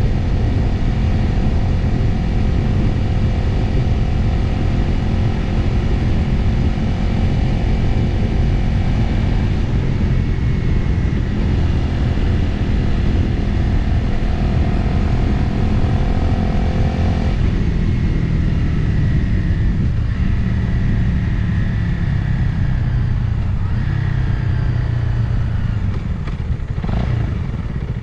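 Motorcycle engine running under way at a steady road speed, mixed with wind noise on the onboard microphone. The engine note changes pitch a couple of times and eases off near the end.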